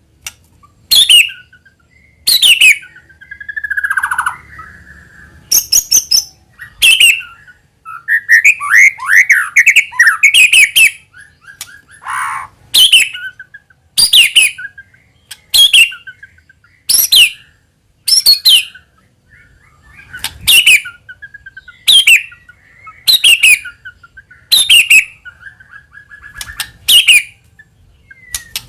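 White-rumped shama (murai batu) calling in its agitated style, used as a lure for other shamas. Loud, sharp, downward-sweeping notes repeat about every one and a half seconds, with softer whistles and warbles between them.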